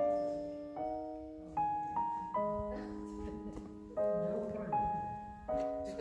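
Background piano music: a slow, gentle melody of single notes and chords, each struck and left to ring and fade.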